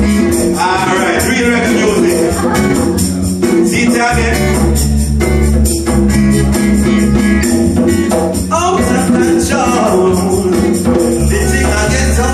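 Reggae song playing, with a steady beat and bass line under light hand percussion and passages of singing.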